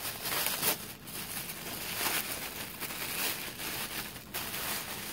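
Tissue paper crinkling and rustling as hands rummage through a cardboard box, louder about half a second in and again around the middle.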